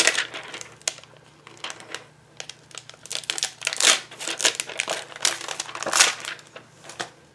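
Clear plastic photopolymer stamp sheet crinkling and crackling as it is handled, in irregular bursts that are loudest at the start, about four seconds in and about six seconds in.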